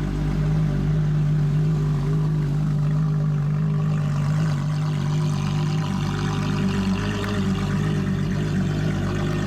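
Ferrari LaFerrari's V12 engine idling steadily, a constant low drone with no revs.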